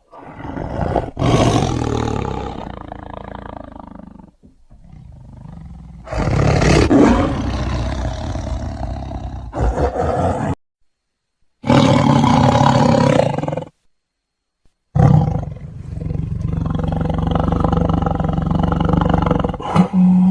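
Big cat growling and roaring, deep and rough, in about four long snarls each cut off abruptly into dead silence.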